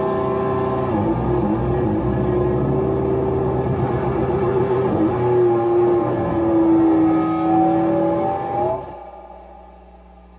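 Sustained distorted electric-guitar feedback drone through the amplifier, several pitches wavering and gliding over one another. It falls away about nine seconds in, leaving a low amplifier hum.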